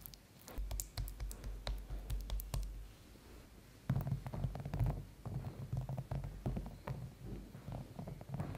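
Close-up food-preparation sounds: a wooden spoon spreading tomato sauce on pizza dough, then grated mozzarella dropped onto the sauce. Heard as a run of soft clicks and taps over a low rumble, busier in the second half.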